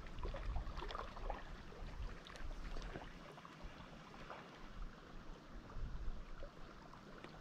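Spinning reel being wound in with a fish on the line, giving faint, irregular small clicks over a soft background of lake water lapping.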